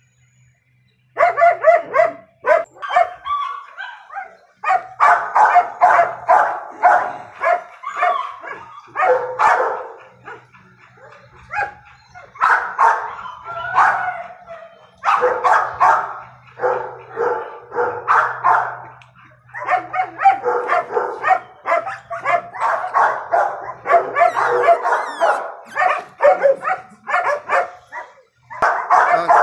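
Dogs barking in rapid runs of several barks a second, broken by short pauses, starting about a second in.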